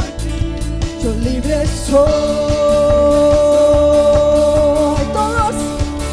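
Live Christian worship music: a woman sings, holding one long note through the middle, over acoustic guitar and a band with a steady beat.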